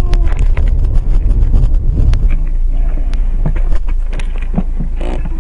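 Aftermath inside a car's cabin just after it struck a moose: a heavy low rumble from the car that eases off after about two and a half seconds, with scattered clicks and knocks as the knocked-loose dash camera and loose things shift about, and a short noisy burst near the end.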